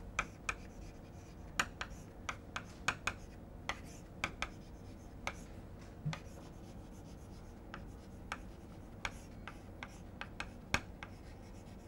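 Chalk writing on a chalkboard: short, irregular taps and scrapes of the chalk stick as words are written stroke by stroke.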